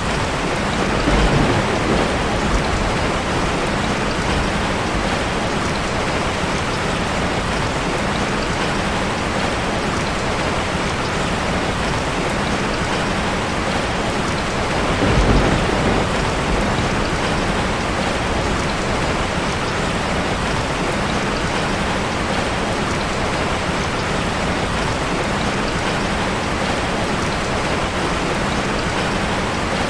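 Steady, heavy rain falling, an even continuous patter. Two brief low rumbles of thunder swell up, one about a second in and one about halfway through.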